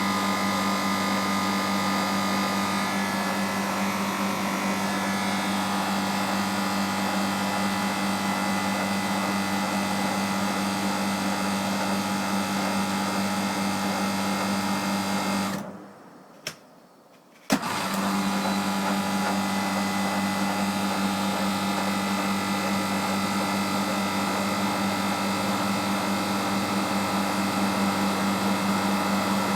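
Bristol refrigeration compressor and condenser fans running with a loud, steady hum. About halfway through the sound drops away for a couple of seconds with a click, then comes back abruptly with a sharp click.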